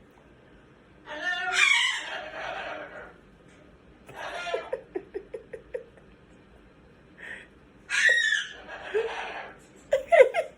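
Laughter in several separate bursts, one of them a quick run of short 'ha-ha' pulses.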